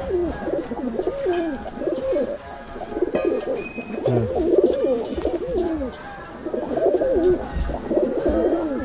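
Several domestic Giribaz pigeons in a loft cooing at once, their coos overlapping and rising and falling in pitch without a break.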